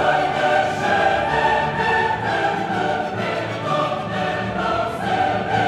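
Background music: a choir singing over an orchestra.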